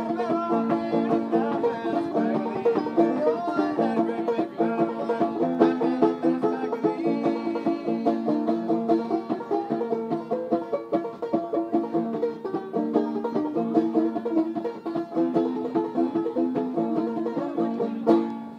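Solo banjo played clawhammer style, a quick tune of plucked and struck notes, closing on a last struck chord that rings away near the end.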